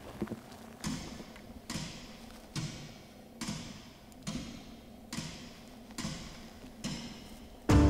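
Steady walking footsteps through dry grass and sagebrush, about one step a second, each a soft thud with a brushing crunch of dry stems. Music comes in abruptly near the end.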